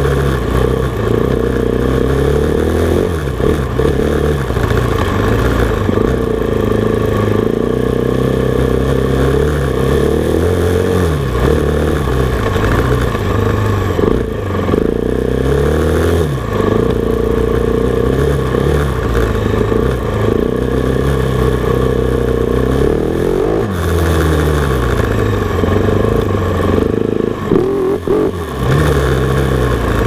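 KTM Freeride dirt bike engine, heard through a microphone under the seat, revving up and dropping back again and again as the bike is ridden, its pitch rising and falling every few seconds. Some clatter runs through it, which the owner suspects is the loosely mounted microphone bouncing around under the seat.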